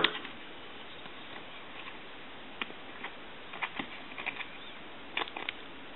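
Faint scattered clicks and ticks of small plastic telephone parts being handled as a sticky, liquid-soiled keypad is worked apart, over a steady low hiss.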